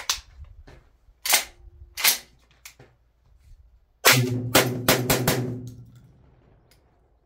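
Tokarev TT12 semi-automatic 12-gauge shotgun firing a mixed magazine of a slug and Winchester white box shells. Two single sharp bangs come in the first two seconds, then a rapid string of about five shots about four seconds in that rings out; the gun is feeding and cycling the mixed loads.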